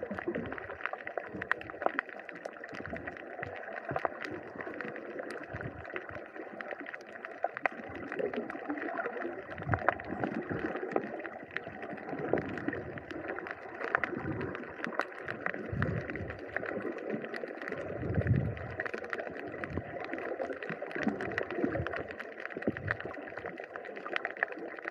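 Water sloshing and gurgling close to the camera, with many scattered sharp clicks and irregular low thumps.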